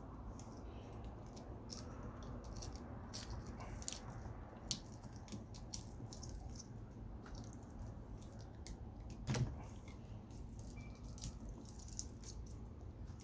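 Wire-cutter pliers and a flat-head screwdriver working copper wire free: scattered small metal clicks and snips, with one heavier knock about nine seconds in.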